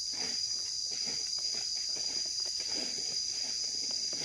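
Steady high-pitched drone of insects, with soft scratching and rustling of gloved fingers digging through dry leaves and soil.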